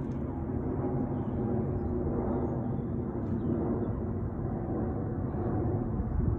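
Airbus A350 airliner passing overhead at altitude: a steady low rumble from its Rolls-Royce Trent XWB turbofan engines.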